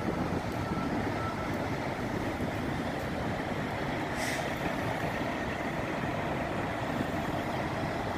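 Steady rumble of many big-rig diesel engines idling in a truck-stop lot, with a brief hiss about four seconds in.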